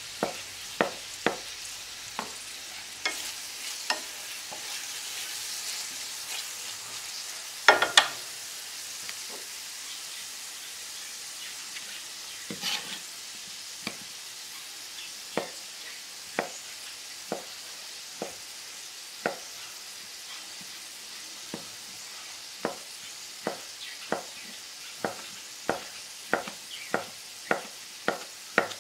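Kitchen knife chopping boiled sausage into cubes on a plastic cutting board, each stroke a sharp tap. The taps come quicker, about two a second, near the end, with a louder double knock about eight seconds in. Under them runs the steady sizzle of onions and tomatoes frying in a pan.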